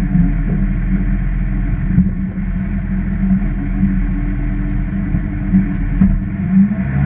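Diesel engine of an Iveco Acco refuse truck running steadily, heard from inside the cab as a low, even drone.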